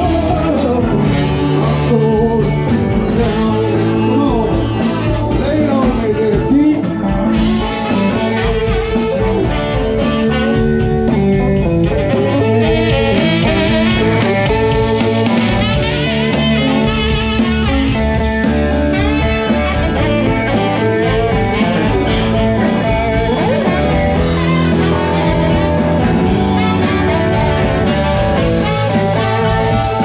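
Live blues band playing an instrumental stretch, with electric guitar over drum kit and bass, and wavering bent lead notes around the middle.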